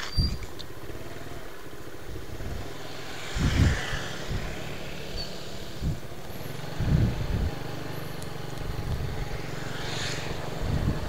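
A motorcycle engine running at low speed as the bike rolls along, a steady low hum. A few louder low thumps come about three and a half and seven seconds in.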